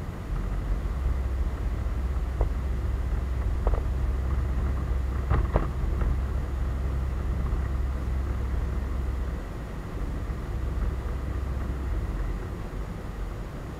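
Yamaha DragStar Classic's V-twin engine running as the motorcycle rides along, a steady low drone under a hiss of road noise, with a few faint clicks. About nine seconds in the drone eases off and the overall sound drops a little.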